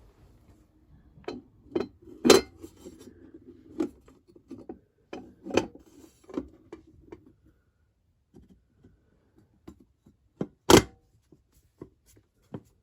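Scattered knocks, clicks and light clatter of hard objects being handled while a small vending machine is filled and serviced, with two louder knocks about two seconds in and near the end.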